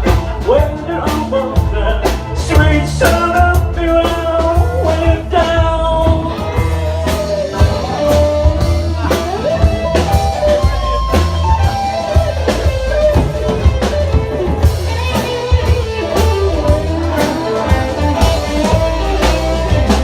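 Live rock band playing an instrumental passage: a bending guitar lead line over bass and drums.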